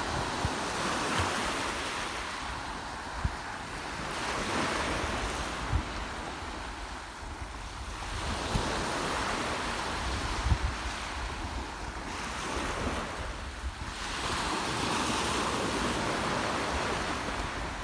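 Small waves breaking and washing up a pebble beach, the surf swelling and fading about four times, with wind buffeting the microphone.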